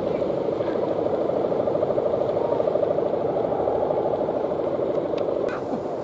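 Steady, fast-pulsing drone of a Balinese kite's guangan, the humming bow fitted to the kite, vibrating in the wind. A short faint high chirp comes near the end.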